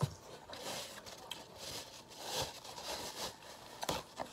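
Paper towel rustling and rubbing in short patches as greasy hands are wiped, with a couple of small clicks near the end.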